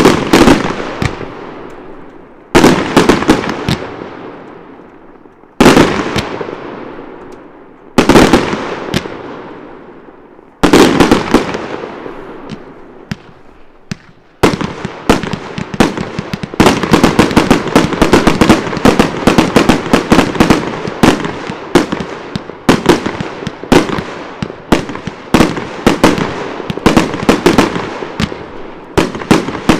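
Fireworks display: five heavy aerial shell bursts two to three seconds apart, each followed by a long rolling echo that dies away. From about halfway a fast barrage of many sharp bangs follows, several a second.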